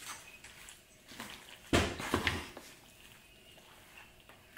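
A metal utensil stirring and scraping macaroni and cheese in an aluminium foil pan, with a sudden loud knock a little under two seconds in, followed by a few quick clinks.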